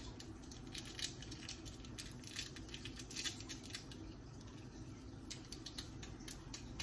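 Dry seasoning crumbled and rubbed between the fingers, an irregular light crackling and rustling, over a low steady hum.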